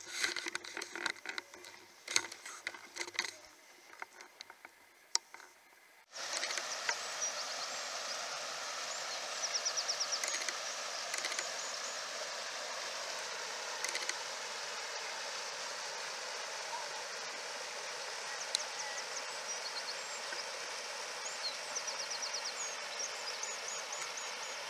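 Light irregular knocks and rustles, then about six seconds in an abrupt cut to the steady rush of a shallow rocky stream, with brief high chirping calls now and then.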